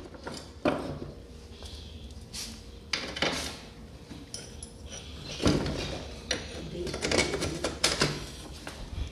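Scattered metallic clinks and knocks at uneven intervals as the Honda CG 150 Titan's rear wheel, new sprocket and axle parts are handled and worked back into place.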